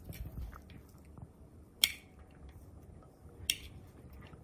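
Chopped onion being pushed by hand off a plate into a glass bowl, a faint scraping and rustling broken by two sharp clicks about a second and a half apart.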